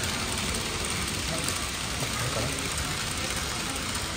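N-gauge model train running along the layout's track, heard as a steady even hiss over the low background noise of the shop.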